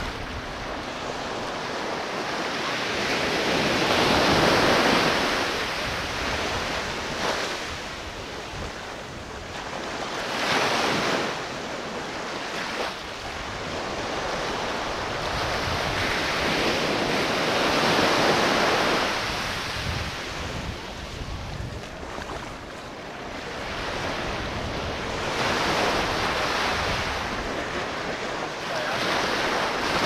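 Ocean surf breaking and washing up a sandy beach, swelling and fading every several seconds, with wind rumbling on the microphone.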